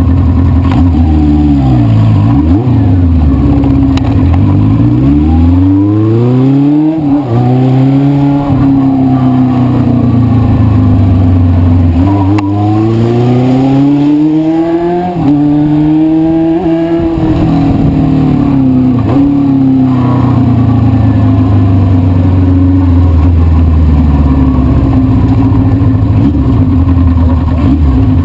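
1973 Honda CB500 Four's air-cooled inline-four engine running under changing throttle, its pitch falling and climbing. The revs drop sharply about seven seconds in and again about fifteen seconds in, as in gear changes. They then settle to a steady run for the last ten seconds.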